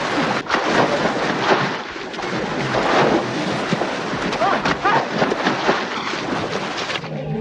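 Heavy splashing and churning of water as tigers and people thrash in it, a steady dense roar of spray throughout. A couple of short cries break through about four and a half seconds in.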